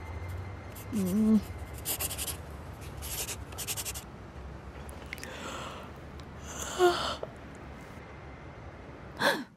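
Rapid scribbling on paper in several bursts in the middle, over a low steady hum. There is a short vocal grunt about a second in and another small vocal sound near seven seconds, and the hum cuts off suddenly near the end.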